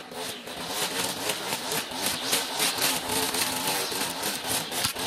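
Stihl petrol strimmer running and cutting weeds. The engine note surges up and down in quick, uneven bursts as the line works through the growth.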